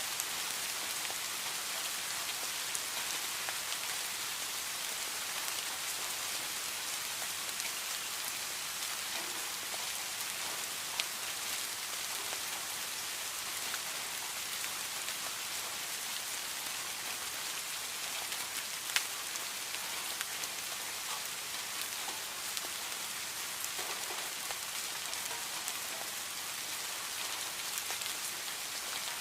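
Heavy rain falling, a steady dense hiss with scattered sharper drop ticks and a couple of louder single drips about a third and two-thirds of the way through.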